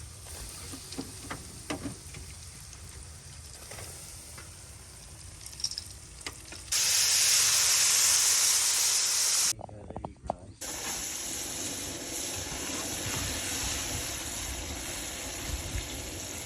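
Shrimp frying in hot oil. A loud burst of sizzling starts suddenly about seven seconds in, and a steadier, quieter sizzle follows.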